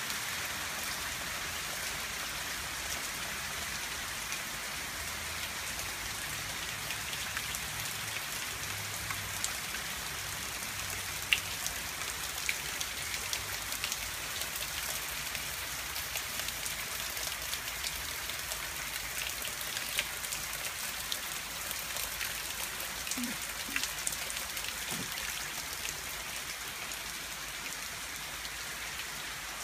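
Steady rain falling on a wet asphalt driveway and garden plants, an even hiss with many sharp drop hits close by.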